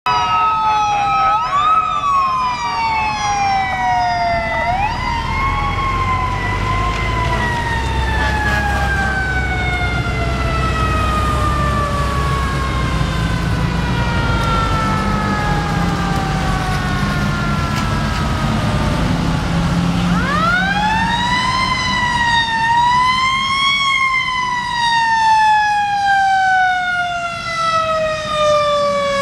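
Fire department sirens on responding vehicles: a siren swings up and down in pitch in the first few seconds, then one long slowly falling wail over the low rumble of a heavy engine passing. About twenty seconds in a siren winds up sharply, peaks twice and then winds slowly down.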